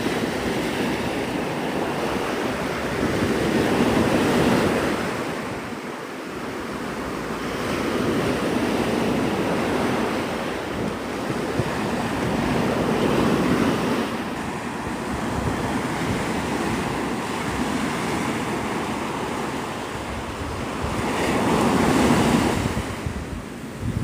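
Gulf of Mexico surf breaking on a sandy beach: a steady wash of waves that swells several times as sets roll in, with wind buffeting the microphone.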